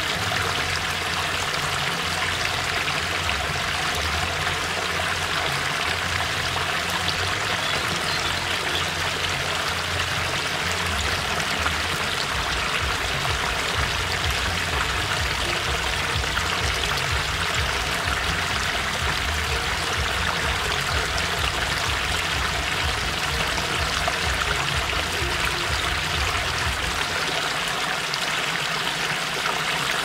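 Small waterfall splashing steadily over rocks into a shallow stream pool, a constant rushing and spattering of water. A low rumble underneath drops away a few seconds before the end.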